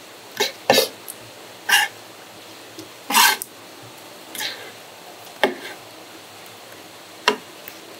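Irregular series of short, sharp knocks and wet slaps, about eight in eight seconds, the longest a little past the middle.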